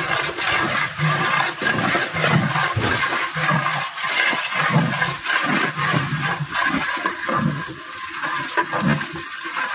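Steady rushing hiss from a large pot of biryani steaming over a wood fire, with scattered clicks and knocks as a long ladle stirs it.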